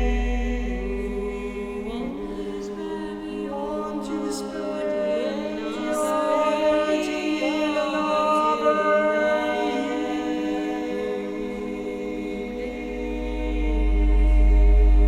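Music: voices singing long held notes in chorus, without instruments, with some pitches sliding between notes. A deep low rumble swells up again near the end.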